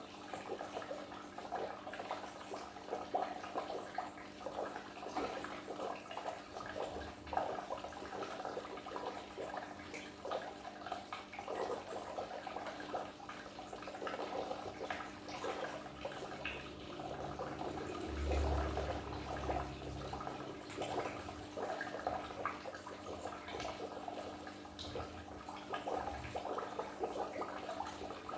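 Goldfish aquarium water bubbling and trickling steadily, small splashes crackling over a constant low hum of the tank's pump motor. About two-thirds of the way through, a brief low rumble rises under the water sound.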